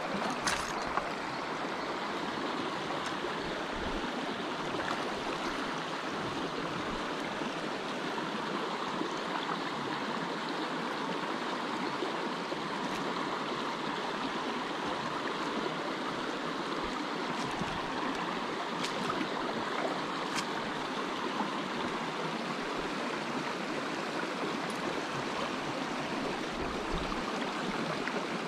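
Mountain creek running over a shallow rocky riffle: a steady rushing and babbling of water. A few light clicks sit over it, the clearest about half a second in.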